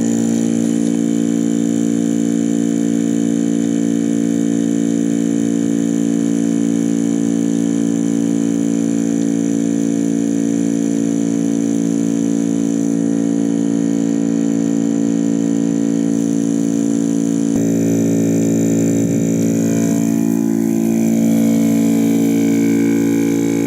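VIAIR 300P portable 12-volt air compressor running steadily with an even motor hum as it pumps up a completely flat 37-inch tire.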